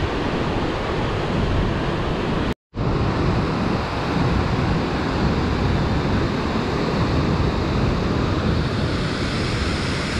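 Loud, even rushing noise with most of its weight in the low end, cutting out completely for a split second about two and a half seconds in.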